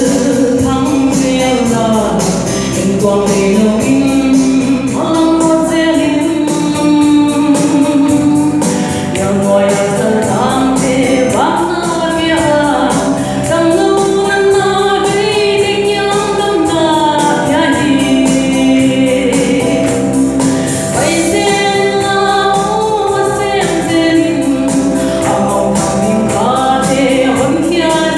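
A woman singing a gospel song into a microphone, amplified through a PA, over music with a steady beat.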